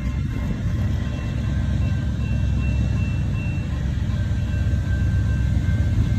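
Steady low rumble of the CSX freight train's diesel locomotives, with the faint steady ringing tones of the grade-crossing warning bell over it.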